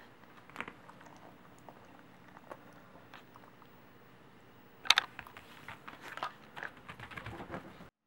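Corgi biting and chewing a piece of dried meat jerky: a few scattered crunches, then a loud crunching bite about five seconds in followed by quick, dense chewing that cuts off abruptly near the end.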